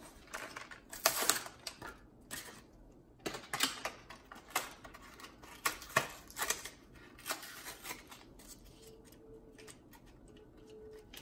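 Hot Wheels blister pack being torn open by hand: the plastic blister crackling and the cardboard backing ripping in an irregular run of crinkles and snaps. The sound thins out in the last few seconds.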